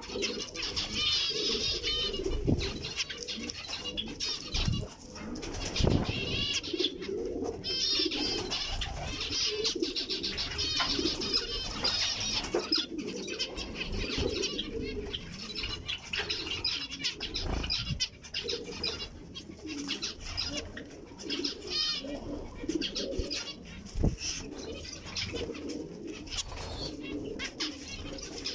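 Zebra finches calling continuously in quick, high-pitched chirps over a lower, mellow cooing, with a couple of soft knocks or wing-flaps.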